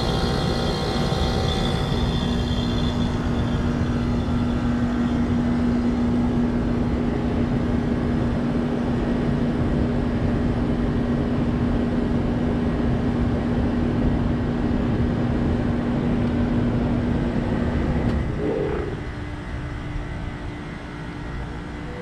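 Trane XB13 heat pump outdoor unit running in its defrost cycle, the compressor humming steadily while the fan is stopped. About 18 seconds in the hum breaks off with a brief sound and the unit goes noticeably quieter.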